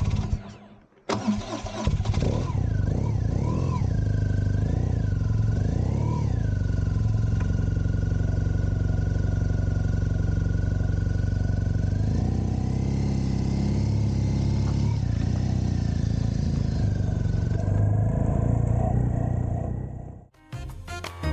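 A vehicle engine starting up about a second in and running, its revs rising and falling a few times before settling into a steady run. The sound fades out near the end.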